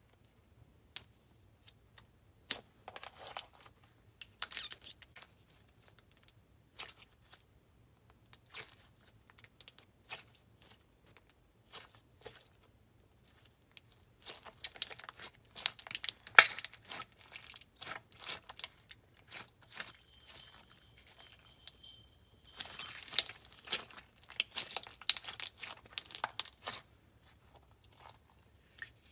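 Light blue slime with jelly cubes being squished and worked by hand, giving many small sticky clicks and pops in bursts with short pauses.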